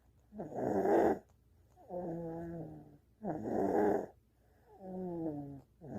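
Snoring in deep sleep: a rough, rasping snore alternating with a steadier, pitched drone, each about a second long, one full breath roughly every two and a half seconds.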